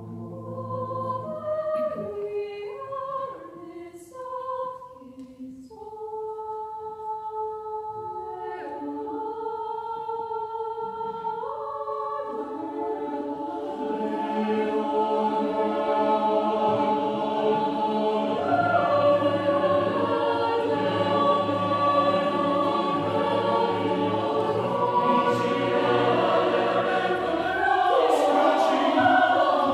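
Mixed choir singing unaccompanied: short, separated sung notes in the first few seconds, then sustained chords that thicken and grow louder toward the end.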